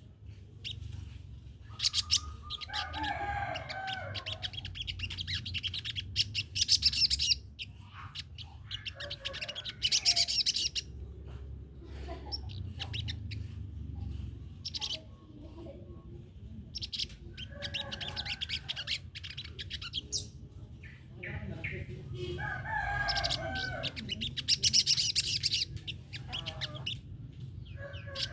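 A sogon songbird singing in repeated bursts of rapid chirping song, each phrase lasting one to three seconds with short pauses between, over a steady low hum.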